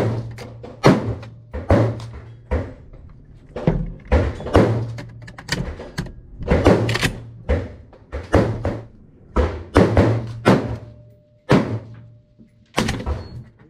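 Gunshots from other shooters on the range, coming roughly once a second at uneven intervals, each sharp crack trailing off in an echo.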